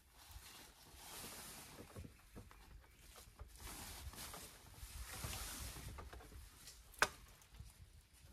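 Flysheet fabric rustling as it is handled and rigged, with small ticks and one sharp click about seven seconds in.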